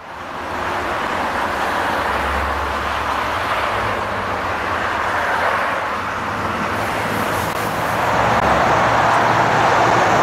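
Engine noise of a twin-engine widebody jet airliner on final approach, a steady rushing drone that fades in at the start and grows louder over the last few seconds as the aircraft nears.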